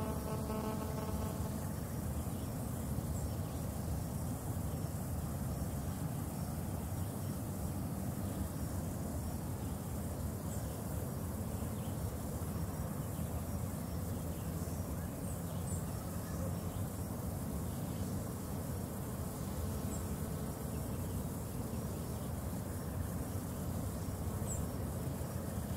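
Outdoor ambience: a steady wind rumble on the microphone with a faint high insect drone and a few short, high chirps scattered through. A faint hum made of several steady tones fades out about a second and a half in.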